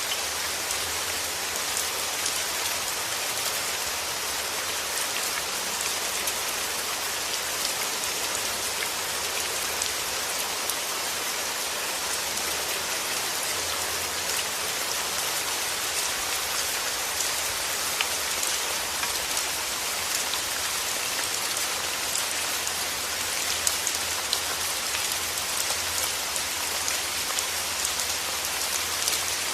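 Steady rain falling on a surface, a constant hiss dotted with many small drop ticks.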